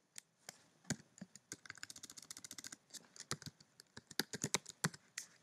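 Typing on a computer keyboard: scattered single keystrokes, with a quick, even run of rapid key taps in the middle.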